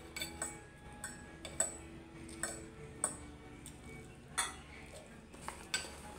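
Metal fork and spoon clinking and scraping against a ceramic plate as the last rice is gathered up: a string of short sharp clinks, roughly one or two a second, the loudest about a second and a half in.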